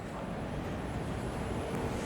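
Steady background rumble and hiss of a railway station, with a faint steady hum coming in about one and a half seconds in.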